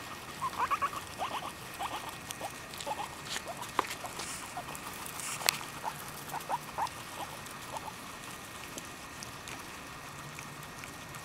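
Guinea pigs squeaking and munching fresh grass: a run of short high squeaks and chirps, densest in the first few seconds and dying away after about seven, over crisp clicks and rustles of blades being torn and chewed. Most of the squeaking comes from a black-and-white Abyssinian guinea pig.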